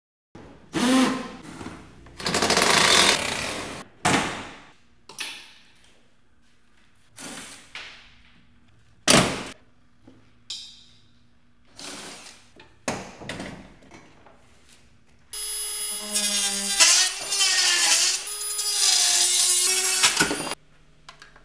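A string of short scrapes, knocks and clicks from hand work, then a small power tool running for about five seconds near the end, its pitch dipping and wavering as it cuts into a plastic headlight reflector.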